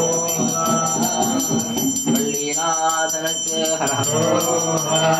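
A hand bell rung rapidly and continuously, at about five strikes a second, with a steady high ring, over voices singing.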